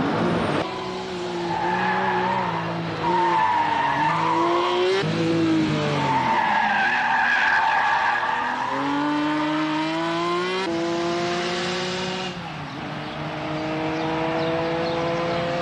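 Ferrari F50's 4.7-litre naturally aspirated V12 accelerating hard, its pitch climbing and dropping back at each of several gear changes.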